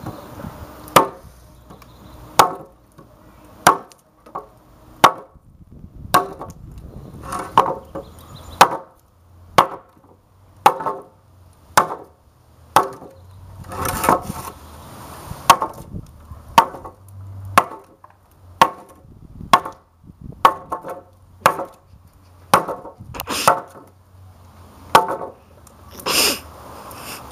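Heavy Becker BK3 chopping knife (1.3 lb, 1095 Cro-Van steel) chopping into a weathered wooden stair handrail, biting out chips. The blows are sharp and separate, about one a second.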